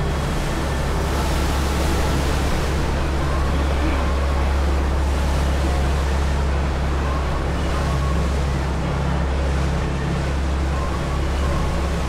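Passenger ferry under way: its engines give a steady low drone under the rushing of the churned wake and wind.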